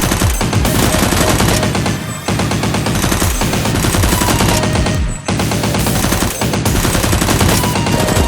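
Rapid automatic gunfire sound effects in long continuous bursts, breaking off briefly about two and five seconds in, with music underneath.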